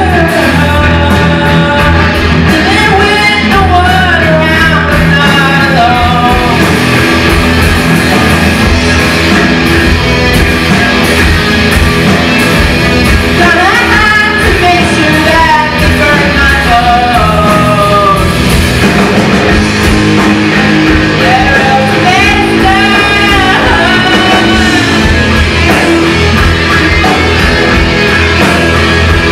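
Live rock band playing: several electric guitars, bass and drums, loud and steady, with a lead melody line bending up and down over the top.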